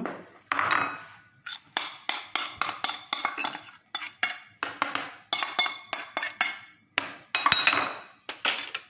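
A utensil scraping and knocking against a frying pan as the cooked egg and garlic mixture is emptied into a dish: a quick run of metallic clinks, about three a second, with scraping between them.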